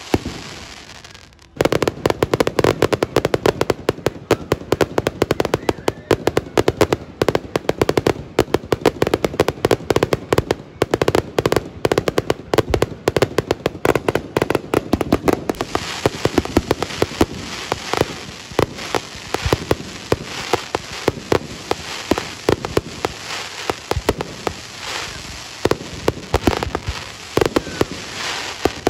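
Aerial fireworks going off in a dense, rapid barrage of bangs and crackles. It starts about a second and a half in, after a brief lull, and from about halfway through the crackling turns brighter and hissier.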